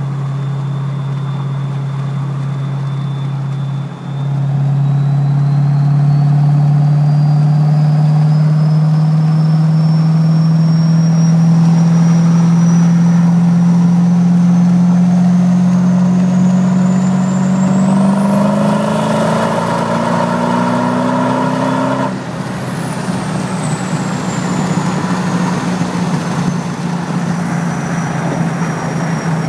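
Duramax diesel with a BorgWarner S366 turbocharger pulling under load: over the steady diesel drone the turbo whistle climbs slowly, then shoots up to a shrill peak as the engine note rises. About three quarters of the way through the throttle is lifted, the engine note drops suddenly and the whistle winds down in pitch as the turbo spools down.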